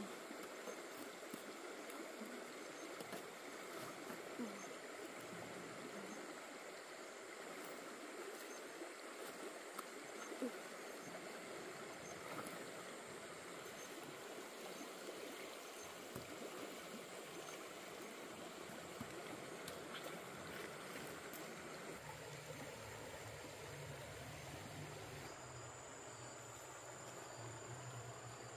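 Stream water flowing steadily over stones, with a few faint clicks; a low hum comes in about three-quarters of the way through.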